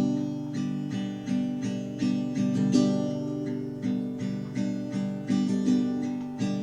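Guitar chords strummed in a steady rhythm, about two to three strums a second, with no singing over them.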